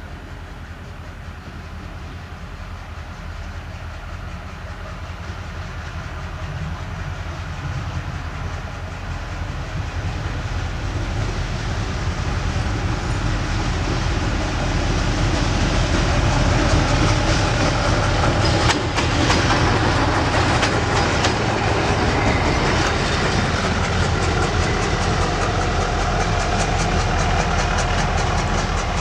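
Diesel-hauled freight train approaching and passing, its rumble growing steadily louder over about fifteen seconds and then holding. From about eighteen seconds in, the wheels click over the rail joints.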